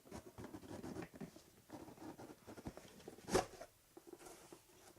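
A cardboard subscription box being opened by hand: flaps and packing rustling and scraping, with one sharp snap about three and a half seconds in.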